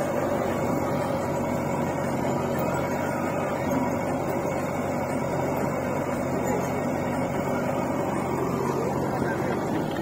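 Diesel engines of a JCB 3DX backhoe loader and a John Deere 50 HP tractor running steadily, an even engine hum.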